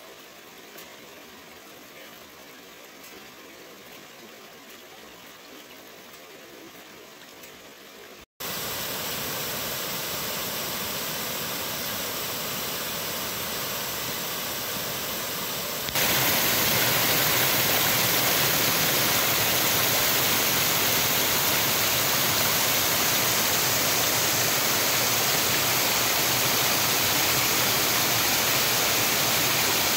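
Steady rush of creek water running over rocks, which jumps louder at a sudden cut about 8 seconds in and again about 16 seconds in, becoming the heavier, fuller rush of a small waterfall cascading down stepped rock ledges.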